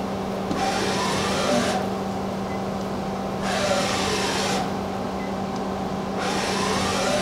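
DMG MORI NLX-2500/500 CNC lathe's turret slide jogging along its Z axis: three moves of about a second each, a couple of seconds apart, each a servo whine that rises and falls over a hiss. A steady machine hum runs underneath.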